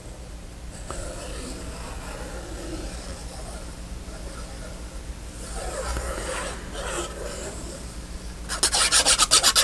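Paper and card being shuffled and handled, then, about eight and a half seconds in, fast back-and-forth rubbing strokes on paper, about ten a second.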